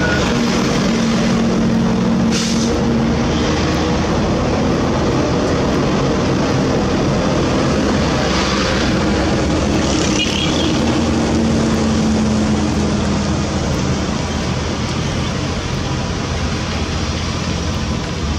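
Heavy diesel engine running steadily, with a few short hisses about two and a half, eight and ten seconds in.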